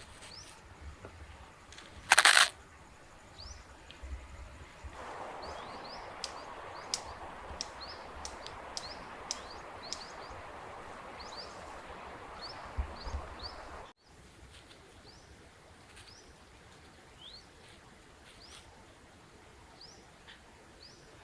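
Small birds chirping repeatedly with short rising calls over a rural outdoor background. About two seconds in there is one brief, loud noise, and a steady rushing noise runs through the middle of the stretch before it cuts off abruptly.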